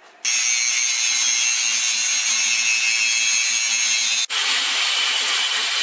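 A grinder grinding down a thick-walled 304 stainless steel tube that is spinning in a drill press: a loud, steady, high hissing grind that starts abruptly just after the start, with a split-second break a little past four seconds in.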